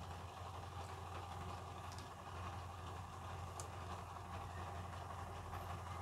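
A steady low hum of background noise, unchanging throughout.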